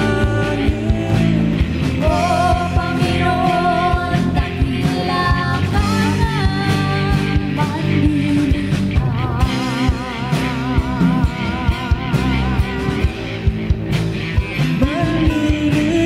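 Worship song played by a band, with a steady drum beat, bass and a lead melody line that slides between notes and wavers with vibrato in the middle.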